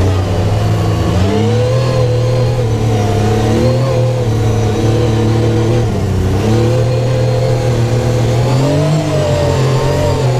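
Supercharged Yamaha YXZ1000R side-by-side's three-cylinder engine running under throttle, its pitch rising and falling several times as the driver accelerates and eases off.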